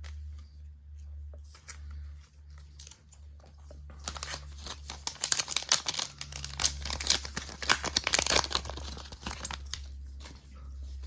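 Foil trading-card booster pack being torn open and crinkled in the hands, a dense crackling rustle that starts about four seconds in and lasts about five seconds, after a few quieter handling clicks.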